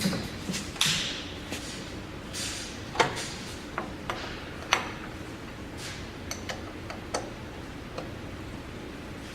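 Scattered sharp clicks and knocks, irregular and about a dozen of them, the loudest about three seconds and about five seconds in, over a faint steady hum.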